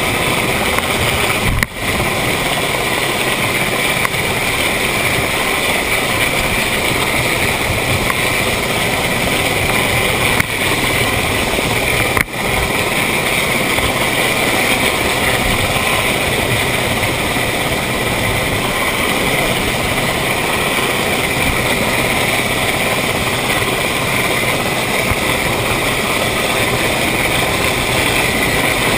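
Steady, loud mix of a Sea King helicopter hovering low overhead and an inshore lifeboat's outboard engine running at speed, with wind rushing over the camera. The noise dips sharply twice, about two and twelve seconds in.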